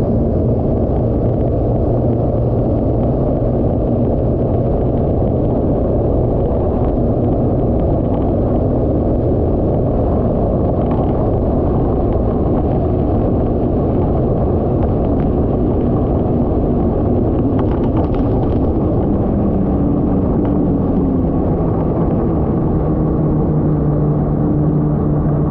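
Yamaha VXR WaveRunner's 1.8-litre four-stroke engine and jet pump running hard at speed, with heavy wind rushing over the microphone in a dense, steady rumble. The engine note drops lower in the last few seconds as the rider eases off from top speed.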